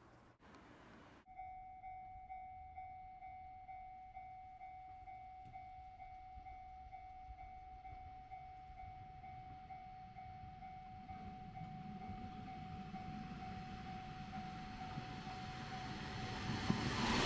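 Japanese level-crossing warning bell ringing a rapid, steady repeating tone that starts suddenly about a second in. Under it the rumble of an approaching diesel train on the Dosan Line grows from about halfway and is loudest near the end.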